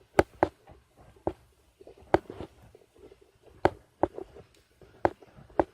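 Irregular sharp clicks and taps, about eight in all, from wire ends being handled and twisted together by hand.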